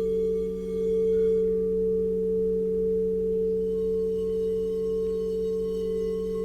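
Singing bowls ringing in long, steady, overlapping tones with a slow wavering beat. Their higher overtones fade out about a second and a half in and come back near the middle.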